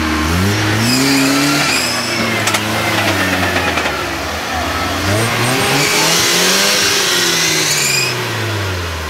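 Mitsubishi Pajero's engine revving hard twice as the 4x4 powers out of a mud pit. The pitch climbs, eases off, climbs again and falls away near the end, with a faint high whine rising and falling along with the revs.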